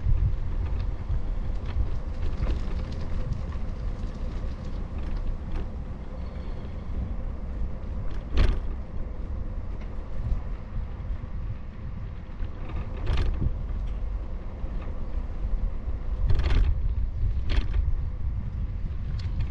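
Steady low rumble of wind and road noise on a moving GoPro's microphone, broken by a few sharp knocks, the loudest about eight and a half seconds in.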